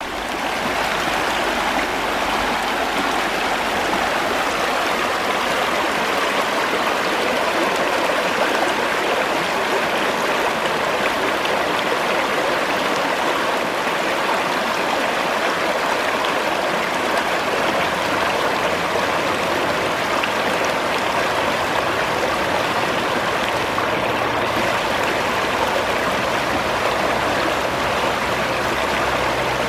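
The Schwechat river flowing, a steady, even rush of running water.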